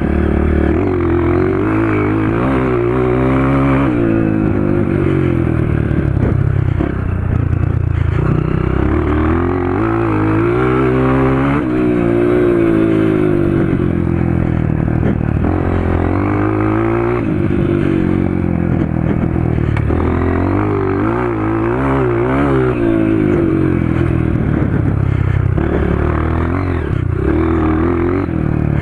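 Honda CRF230 dirt bike's single-cylinder four-stroke engine, breathing through an FMF Powercore 2 exhaust, ridden hard and running loud. Its pitch climbs and drops again and again as it accelerates, shifts and eases off.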